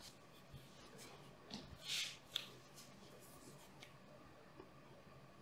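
Quiet room with a few soft rustles of a person shifting position on a yoga mat, and a small click about two seconds in.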